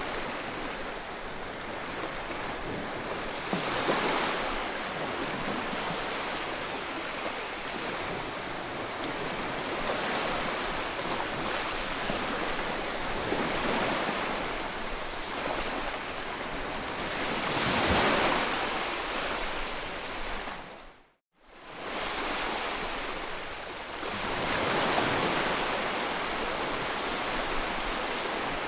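Ocean waves breaking and washing ashore, the surf swelling to a peak every few seconds. About two-thirds of the way in the sound drops out to silence for under a second, then returns.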